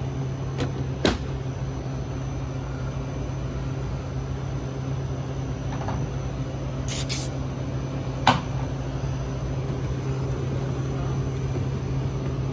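A steady low mechanical hum with a few sharp clicks and knocks over it: two light ones about a second in, a quick pair near the middle and a louder knock a little later.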